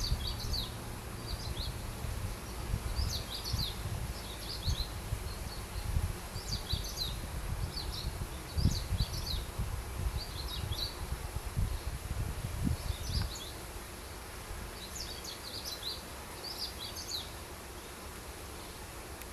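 Small bird chirping in quick clusters of short high notes, a burst every second or two. Under it, low wind rumble that stops about two-thirds of the way in, and a steady high insect drone.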